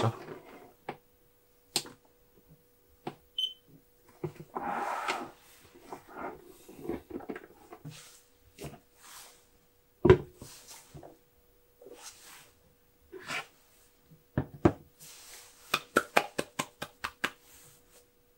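Hands handling a CAS electronic scale: scattered knocks and clicks on its plastic body, with a short high beep about three and a half seconds in. About ten seconds in comes the loudest knock, as a power bank is set down on the weighing platform, and a quick run of small clicks follows near the end.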